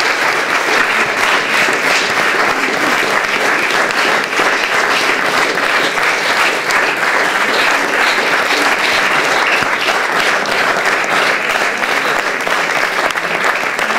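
Audience applauding: dense, steady clapping that breaks out suddenly at the end of the reading and keeps going.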